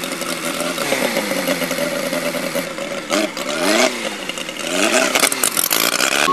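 Race car engines revving, their pitch climbing and dropping several times over a steady hiss.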